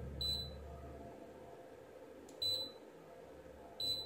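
Three short, high beeps from a digital multimeter in diode-test mode as its probes are set on a transistor's junctions. The beeps are well spaced, about a second and two seconds apart.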